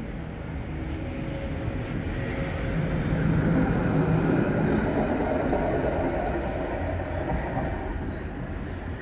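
London Tramlink tram pulling away from the platform. Its wheels and running gear rumble louder as it passes, then ease off as it draws away. A few brief high wheel squeals come about six seconds in.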